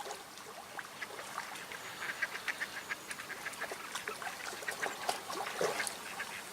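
Ducks quacking: short, irregular calls in a quiet spell.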